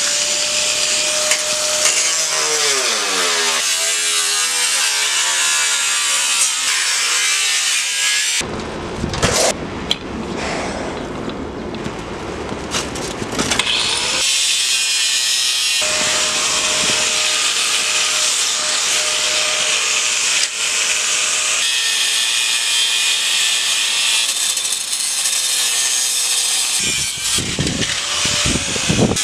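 Electric angle grinder cutting and grinding steel, a harsh grinding hiss over the motor's whine, which drops in pitch as the disc is pressed into the metal. The sound turns rougher for several seconds in the middle.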